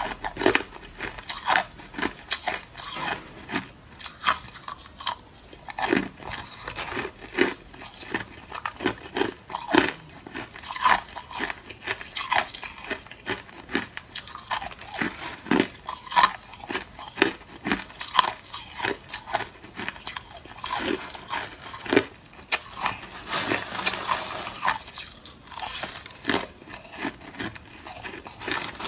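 Clear, hard crushed ice being bitten and chewed close to the microphone: a steady run of sharp crunches, one or two a second, with a denser stretch of crackling crunches a little past the middle.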